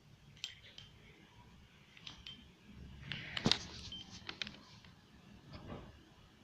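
Light clicks and knocks of small objects being handled, likely slime-making containers and utensils, with a few brief squeaks and one louder knock about three and a half seconds in.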